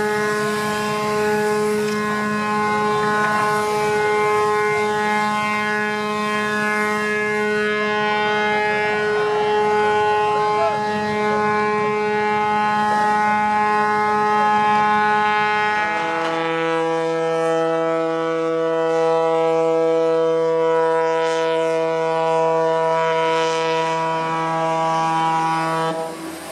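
A ship's horn sounds one long, steady blast: the traditional last whistle of a cargo ship as it is run aground at a breaking yard. About sixteen seconds in, the tone steps down to a lower pitch, which holds until it cuts off near the end.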